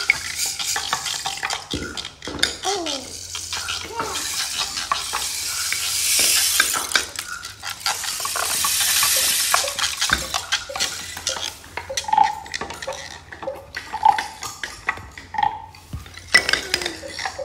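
Wooden hand percussion rattling and clicking. A rain stick pours twice in long hissing swells, each about two seconds, and three short pitched notes sound near the end.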